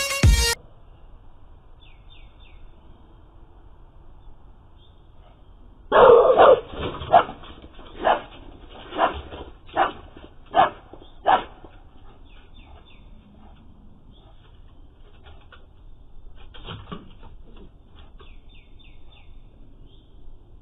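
A dog barking repeatedly in a run of about eight barks roughly a second apart, the first the loudest, at a black bear in the yard.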